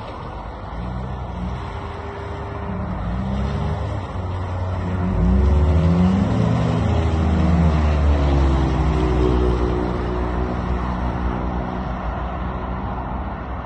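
Honda CR-V engine revving up and down repeatedly as the SUV works through mud, growing louder about five seconds in and easing off near the end.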